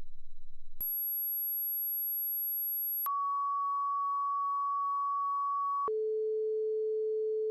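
Continuous sine-wave tone from the Oscalate synthesizer app's oscillator, jumping abruptly from one steady pitch to the next as its frequency slider is tapped to new values: a very low hum at first, a very high whistle about a second in, a middle pitch about three seconds in, and a lower tone about six seconds in.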